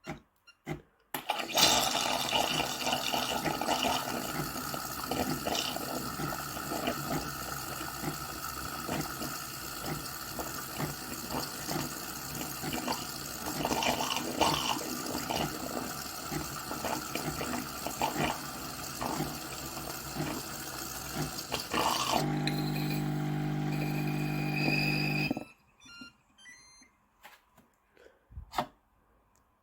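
Bean-to-cup espresso machine dispensing, with liquid gurgling and spitting for about twenty seconds. Then comes a steady pump hum for about three seconds, which cuts off suddenly, followed by a few clicks.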